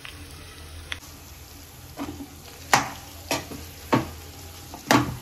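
Crumbled boiled potatoes frying in desi ghee in a non-stick kadhai, with a soft, steady sizzle. From about two seconds in, a spatula scrapes and presses them against the pan in sharp strokes about every two-thirds of a second.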